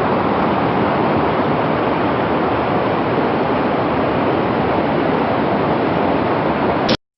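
Rain-fed waterfall rushing very strongly down its rocky tiers: a steady, loud wash of water noise that cuts off suddenly near the end.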